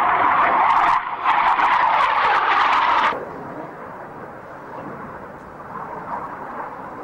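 Loud jet engine noise from a military jet flying past in a display. It breaks off briefly about a second in and cuts off abruptly about three seconds in, leaving a much fainter steady background.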